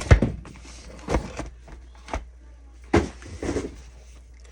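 Irregular knocks and taps of boxed items and packaging being handled and set down, about half a dozen sharp strikes in all.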